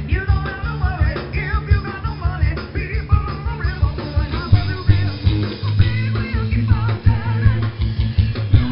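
Live band playing rock music: a singer over drums, bass and electric guitar, with a steady beat.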